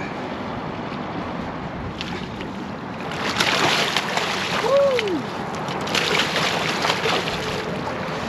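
Hooked Chinook salmon thrashing and splashing at the surface right beside the boat as it is netted, in two bursts of splashing about three and six seconds in, over steady wind and water noise.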